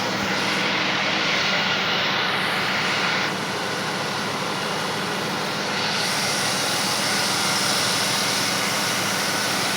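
Ford Mustang V6 engine idling steadily, with a loud airy hiss from broken vacuum lines sucking in air.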